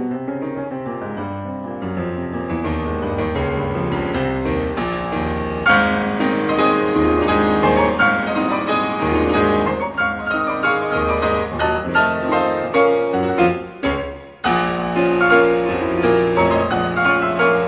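Piano music, with many notes played in quick succession; it breaks off briefly about fourteen seconds in, then picks up again.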